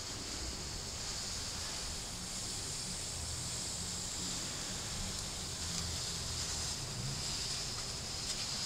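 Homemade hot-wire foam cutter's heated stainless steel wire melting its way through a foam piece pushed slowly across the table, a steady faint hiss.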